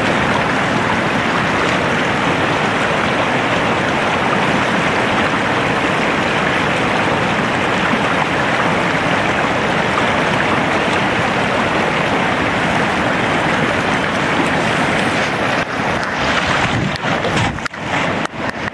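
Flood-swollen river rushing steadily, a loud even wash of water noise. A few short knocks and dips break in near the end.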